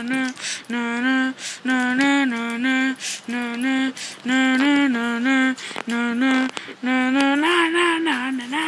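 A single high voice singing a simple tune in short held notes that step up and down between a few pitches, phrase after phrase with brief breaks, and a few short knocks or rustles between the phrases.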